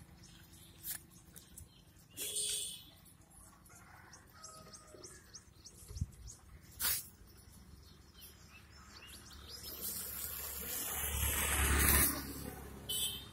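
Goat herd with faint scattered bleats and a few sharp clicks, then a rushing noise that swells over about three seconds near the end and is loudest just before it drops away.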